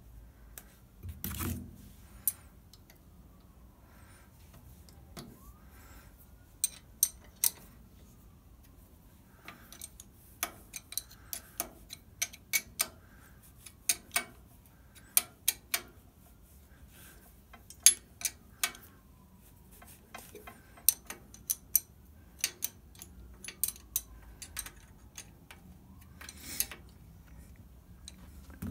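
A wrench and other metal hand tools clicking and clinking against the brake lathe's disk feed gearbox and PTO fittings as they are worked by hand. There is a dull thump about a second in, then a long string of sharp, irregular clicks, bunched most closely between about ten and sixteen seconds in.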